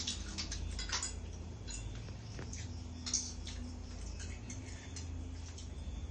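Eating noodles from bowls: scattered light clicks and taps of utensils and mouth sounds, the sharpest right at the start, about a second in and about three seconds in, over a low steady hum.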